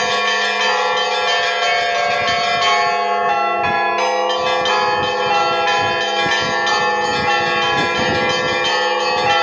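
Russian church bells rung by hand in a traditional zvon peal. Quick strikes on the small bells ring out over the long, sustained hum of the larger bells, in a dense, unbroken texture.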